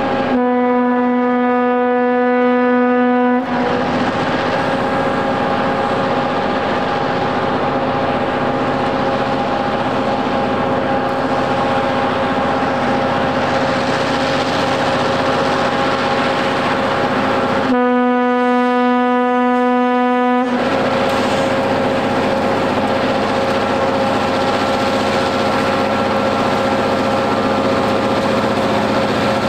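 Diesel train horn sounding two long blasts of about three seconds each, the second some fourteen seconds after the first, over the steady rushing noise and engine hum of a rotary snow plow blowing snow and the diesel locomotives pushing it past.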